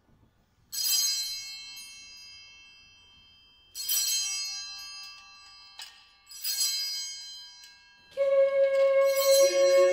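Sanctus bells, a cluster of small altar bells, rung three times, each ring bright and sudden and then fading, marking the elevation of the Host at the consecration. Near the end a choir begins singing sustained chords.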